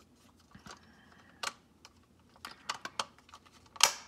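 Plastic clips of a Microsoft Surface Precision Mouse's shell clicking as the top cover is pressed back onto the base by hand: a scatter of sharp clicks, then one loud snap near the end as the cover clips into place.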